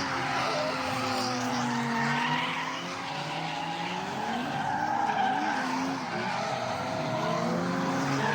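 Drift cars on track, engines revving up and down under throttle with tyres skidding and squealing. Several engine notes rise and fall at once, as from more than one car drifting together.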